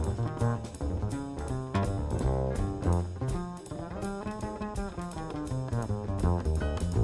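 Live jazz: a grand piano solo of quick runs over double bass and drum kit keeping time, the rhythm section of a saxophone-led quartet.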